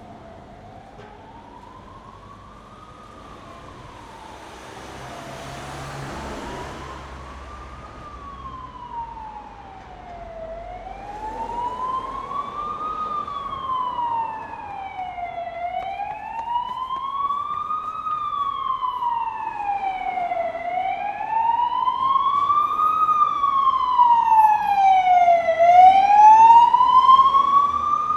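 Emergency vehicle siren wailing in slow sweeps, rising and falling about every five seconds, over city traffic noise. It grows steadily louder as it approaches and is loudest near the end. A brief rush of noise swells and fades about six seconds in.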